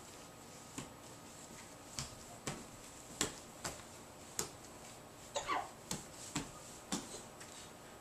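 A crawling baby's hands patting a hard floor: a string of short, sharp taps about two a second, with a brief high squeak from the baby about five and a half seconds in.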